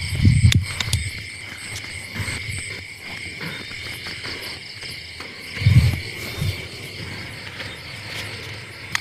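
Crickets chirring steadily at night in a continuous high trill. A few dull low thuds come near the start and again about six seconds in.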